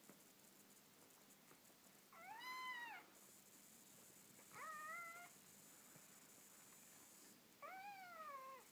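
Ocicat kitten meowing three times, each a high call about a second long, the first and last rising then falling in pitch: the calls of a hungry kitten waiting to be fed.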